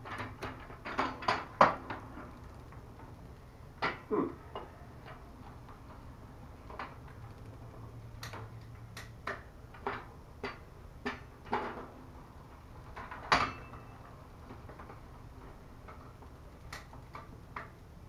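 Bicycle drivetrain clicking and clunking as the pedals are turned by hand and the chain is shifted across the rear cassette cogs, with irregular sharp metallic clicks every second or two, the loudest about 13 seconds in. The shifting is being tested after the shift cable has been tightened.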